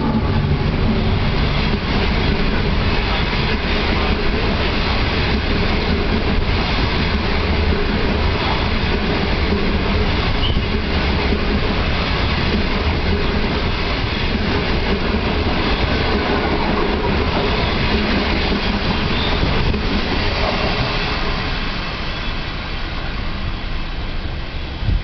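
Passenger coaches of a through train hauled by an SS8 electric locomotive passing along the platform: a steady, loud noise of wheels running on the rails, falling away a few seconds before the end as the train moves off.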